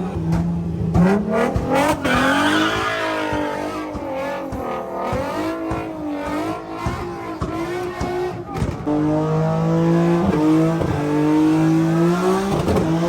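Car engine revving hard: its pitch climbs about two seconds in, wavers up and down, then is held at a steady high rpm through the second half.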